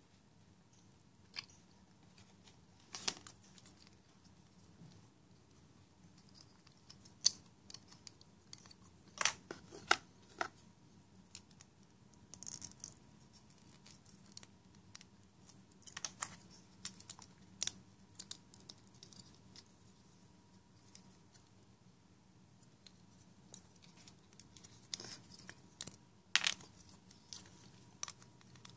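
Small plastic clicks and snaps, scattered and irregular, of a LEGO-compatible block robot toy's parts being handled and pressed together during assembly.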